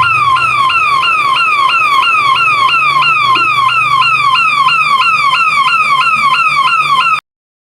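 Electronic police siren sounding a fast yelp: a repeating warble of about three cycles a second, each cycle a quick rise and a falling sweep. It stops abruptly about seven seconds in.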